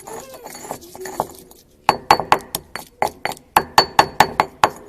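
A quick run of about a dozen sharp clinks, a hard utensil striking a hard vessel, starting about two seconds in at roughly four to five strikes a second, each with a short ring.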